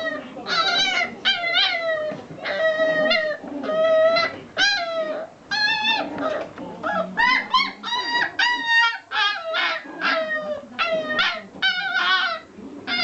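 Japanese Chin puppy whining and yipping: a continuous run of short, high-pitched cries, about two a second.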